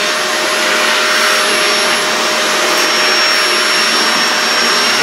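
Vacuum cleaner running steadily with a constant pitched whine, sucking up crumbs from a sofa.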